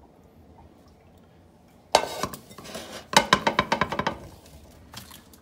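Cookware being handled: a sudden clatter about two seconds in, then a quick run of sharp, ringing clinks, with a couple more near the end.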